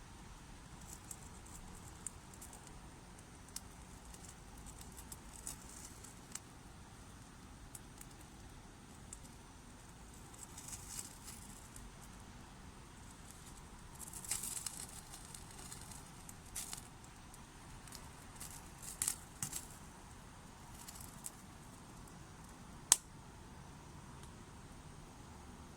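Small fire of damp wood crackling faintly, with scattered pops, short runs of crackle and one sharp pop near the end.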